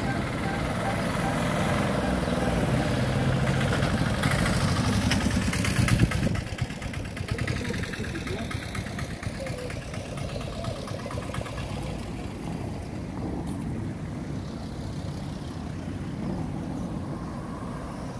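Cars driving past on the road. The engine and tyre sound builds to a peak about six seconds in as a vehicle passes close, then drops to a quieter, steady traffic sound.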